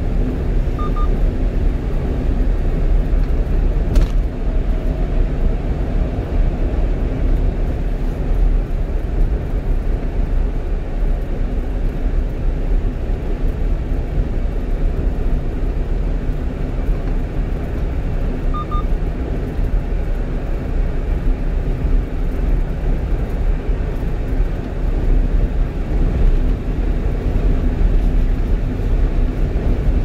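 Cabin noise of a 1-ton truck cruising at highway speed: a steady, low rumble of engine and tyres on the road. A single faint click comes about four seconds in.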